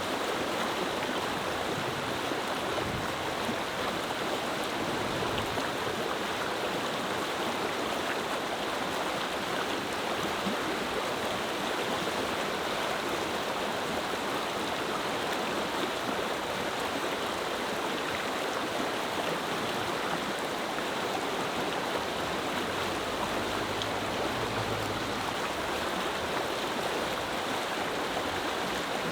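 Clear mountain river murmuring, a steady, even rushing of flowing water without pauses.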